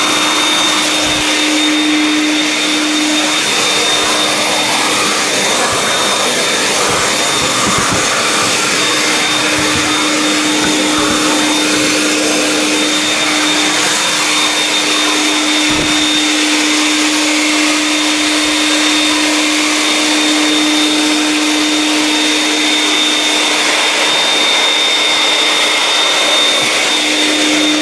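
Vax 221 wet/dry canister vacuum's two-stage motor running steadily in dry mode, drawing air through its dusting brush attachment: an even rush of air with a steady low hum and a thin high whine, and a few faint knocks.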